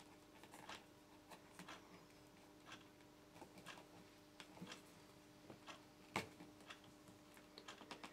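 Near silence with faint scattered clicks and rustles of electrical cable cores being handled and the insulation tape taken off their ends, about one a second, the sharpest about six seconds in, over a faint steady hum.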